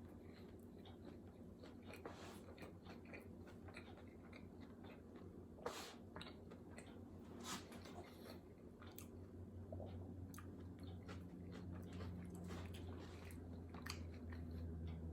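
A person chewing a mouthful of burger close to the microphone, with soft wet mouth clicks and a few sharper crunches. A low steady hum runs underneath.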